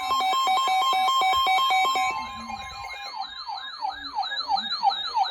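Electronic siren, loud, first alternating rapidly between two tones in a hi-lo pattern, then about three seconds in switching to a fast repeating falling sweep, about three a second.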